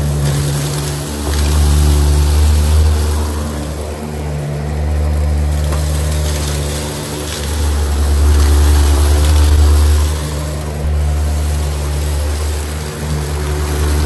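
Shark PowerDetect Pet upright vacuum cleaner running on carpet: a steady motor and brushroll hum that swells and eases every few seconds as the cleaner is pushed back and forth.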